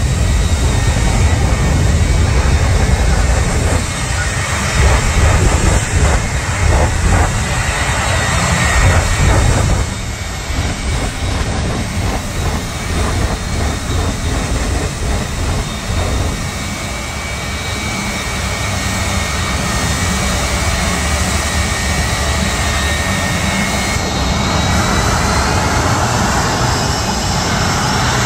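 Two jet engines of a 1957 Chevy jet truck running loudly and steadily. Irregular surges come in the first ten seconds or so, while it throws flames. Near the end a high whine rises in pitch as the engines spool up.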